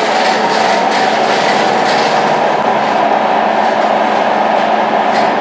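Scania K230UB city bus heard from on board, running steadily: a loud, even engine and road rumble with no change in pitch.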